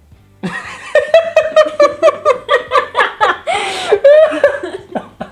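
A person laughing hard, starting about half a second in: a fast run of repeated ha-ha pulses with a gasping in-breath partway through.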